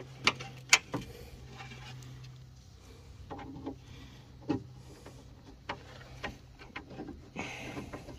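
Scattered light metallic clicks and knocks as a bolt and the window regulator's metal bracket are handled inside a car door while the bolt is being fitted, with a brief scraping rustle near the end over a faint steady hum.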